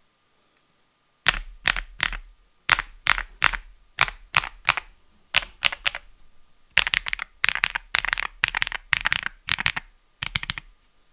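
Keystrokes on an Epomaker x Feker Galaxy80 mechanical keyboard with Feker marble white switches. After about a second of quiet, the keys are typed in quick runs of sharp clacks, fastest in the second half, and the typing stops just before the end.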